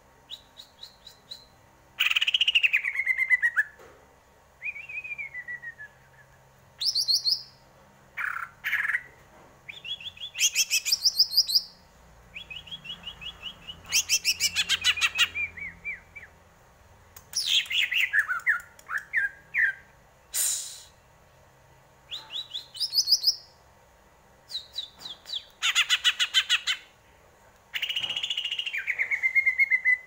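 Caged green leafbird (cucak ijo) singing: a string of varied phrases of rapid trills and falling whistled slurs, each a second or two long, with short pauses between them.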